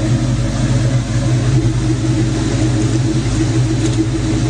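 Car engine running steadily with an even, low rumble, holding one pitch without revving up or down.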